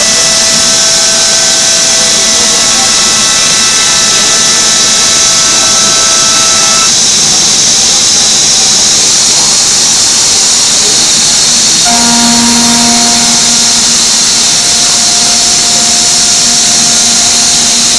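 Five-axis CNC router machining a wooden door panel: a loud, steady hiss of cutting with a high spindle whine. The whine stops about seven seconds in and comes back at a different pitch about twelve seconds in.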